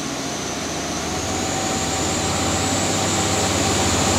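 The twin engines of a Monachus 45 Issa motor yacht, heard from the helm inside the wheelhouse, being throttled up as the boat accelerates. The drone grows steadily louder, with a thin high whine that rises slightly about a second in.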